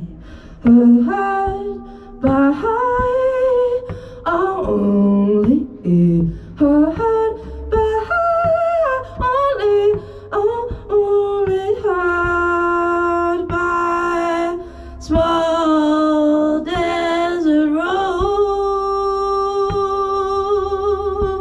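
A woman singing wordlessly into a microphone in an improvised, melodic line. She begins with short sliding phrases, then from about twelve seconds in holds long notes with a wavering vibrato.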